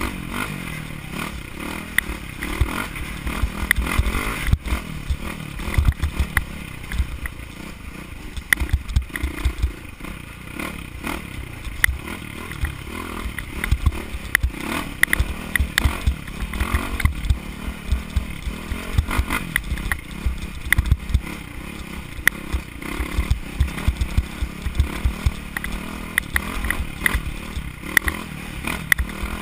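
Off-road dirt bike engine running under load while riding, heard from a helmet-mounted camera, with heavy wind buffeting on the microphone and frequent clattering knocks from the bike going over rough, rocky ground.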